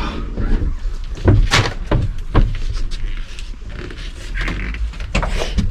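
Passenger seat of an Iveco Daily van being released and shifted: several sharp knocks and clunks from the seat's release latches and frame, grouped in the first half and once more near the end.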